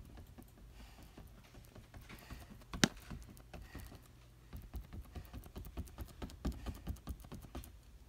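Paintbrush dabbing on a stretched canvas: a quiet, irregular run of soft taps, thicker in the second half, with one sharper click about three seconds in.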